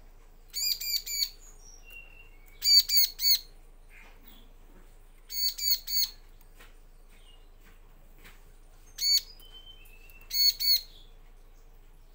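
Bar-winged prinia (ciblek) calling: five loud bursts of two to four quick, ringing notes each, with a few faint short chirps between them.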